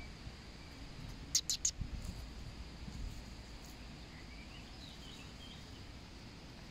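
Quiet outdoor ambience with faint bird chirps over a faint steady high hiss. About a second and a half in, three quick, sharp high clicks.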